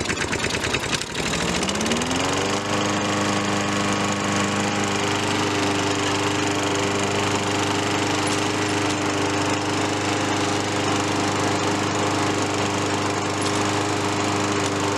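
Briggs & Stratton push-mower engine just started, its pitch rising to governed speed over the first couple of seconds and then running steadily. It runs on a freshly fitted new air filter, and the owner calls it the best it has run in three or four years.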